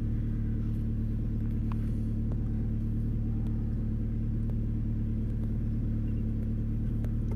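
A car engine idling steadily, a constant low hum, with a few faint clicks now and then.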